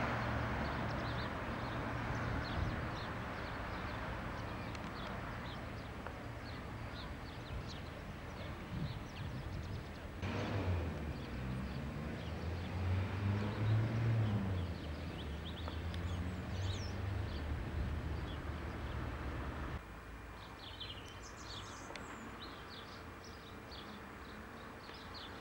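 A car passing and fading away in the first seconds, then outdoor ambience with small birds chirping, louder and plainer near the end, and a low rumble of wind or handling on the camcorder microphone in the middle.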